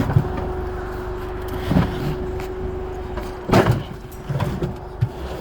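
Forklift running steadily with a constant whine, and several clunks as scrap air-conditioning units are handled: one at the start, one near two seconds in, a double clunk a little past halfway and a light one near the end.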